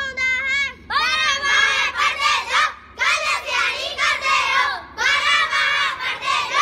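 A boy sings a line of a Punjabi poem alone. About a second in, a group of schoolchildren takes over, chanting the verses together in chorus in short phrases with brief pauses between them.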